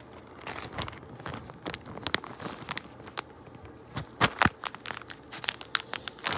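A clear plastic bag being crinkled and crushed in gloved hands close to the microphone: a run of irregular sharp crackles and crunches, loudest a little after four seconds in.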